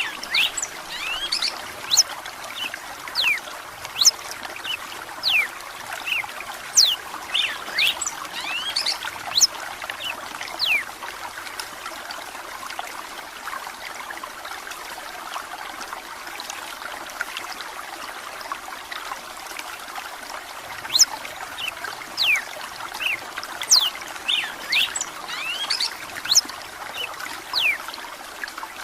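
Red-cowled cardinal (galo de campina) singing in runs of quick, sharply falling whistled notes over a steady trickle of running water. The song breaks off for about ten seconds partway through, then resumes.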